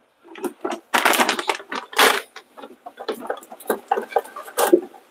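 Irregular clicks, taps and rustles of kitchen handling, with a few louder bursts about one and two seconds in, as cream cheese is fetched and opened for the mac and cheese.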